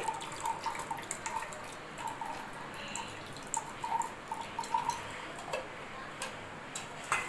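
Hand whisk clicking and clinking against the side of the cup as the coffee mixture is beaten, in a few irregular light taps a second.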